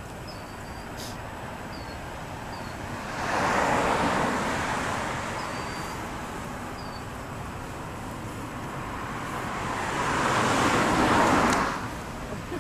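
Road traffic: two vehicles passing, each a swell of tyre and engine noise that rises and fades, the first about three seconds in and the second near the end.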